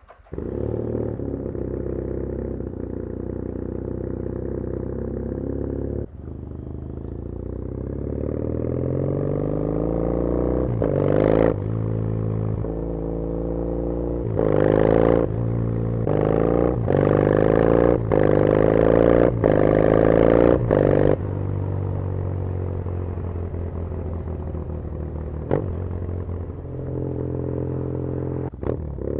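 2013 Triumph Thruxton 900's air-cooled parallel-twin engine through a TEC 2-into-2 Clubman exhaust with the baffles removed. It idles at first, then the revs climb and drop several times as the motorcycle accelerates along the road.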